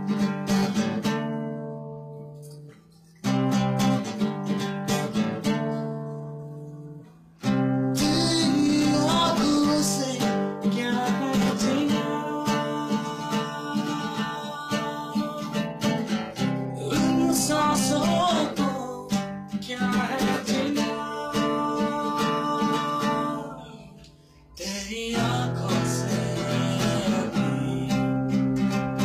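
Guitar chords strummed and left to ring out and fade, twice, then a fuller, busier run of strummed chords from about seven seconds in, with a brief break a few seconds before the end.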